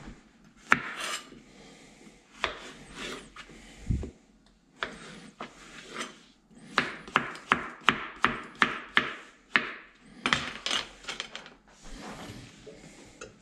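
Chef's knife cutting through a zucchini onto a plastic cutting board: a few separate cuts, then a quick steady run of chops at about three a second.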